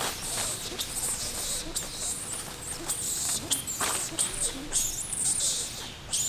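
Bursts of high-pitched animal squeaks and chirps coming and going every second or so, some wavering in pitch, over the outdoor background.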